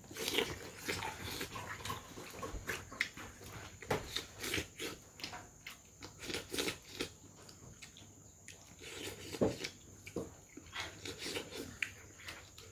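Close-miked chewing and wet lip-smacking of a man eating rice, pork and raw cucumber by hand, in irregular clicks and smacks.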